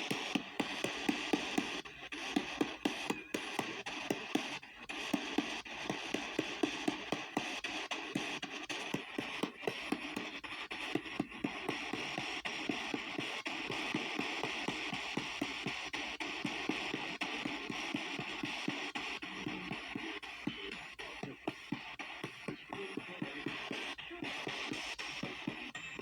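P-SB7T spirit box sweeping the AM band at 250 ms a step: a choppy stream of static and snatches of radio stations and music, cut up by rapid clicks as it jumps from station to station.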